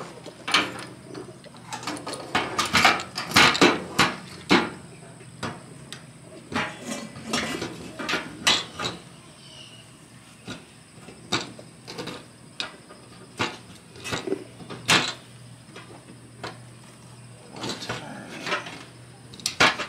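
Irregular clicks, knocks and light rattles of fuel pump assembly parts being handled and fitted together by hand, over a faint low steady hum.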